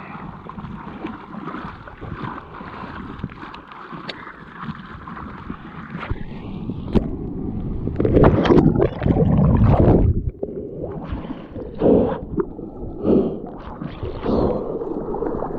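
Sea water sloshing and gurgling against a camera at the surface, with wind buffeting the microphone. About eight seconds in a loud rush of water lasts two seconds as the camera goes through whitewater, followed by several shorter splashes.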